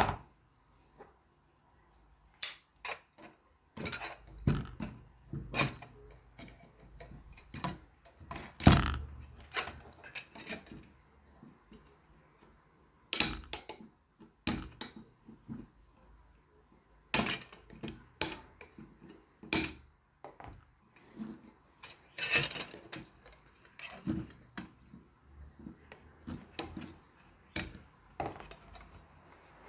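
Irregular metallic clicks, taps and clatter as the small metal parts of a dismantled mini USB desk fan are handled, with no steady pattern.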